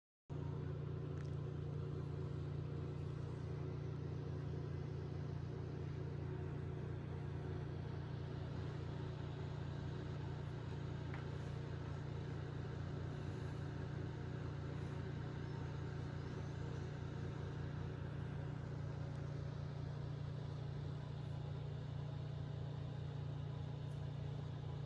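A steady low hum or rumble that starts abruptly and holds unchanged throughout.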